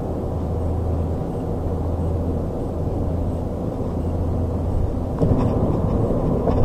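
Car interior noise while driving at road speed: a steady low drone of engine and tyres. About five seconds in it grows louder, with a couple of brief knocks near the end.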